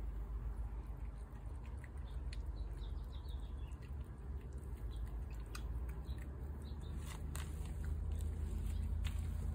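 Cats eating canned cat food from a bowl and a plate, making small wet chewing and clicking sounds over a steady low background rumble.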